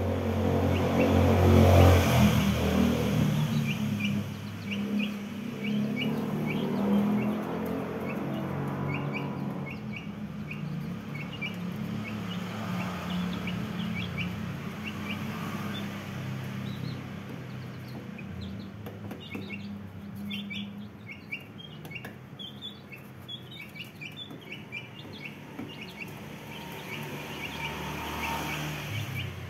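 Brahma chicks peeping: many short, high chirps in quick succession, busiest in the second half. A low rumble runs underneath and is loudest about two seconds in.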